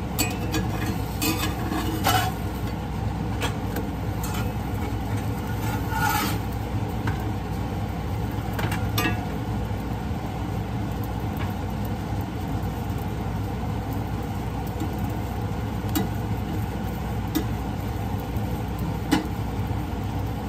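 A metal spatula scraping and tapping now and then in a cast-iron frying pan as a chapati is turned, a dozen or so short clicks, over a steady low hum.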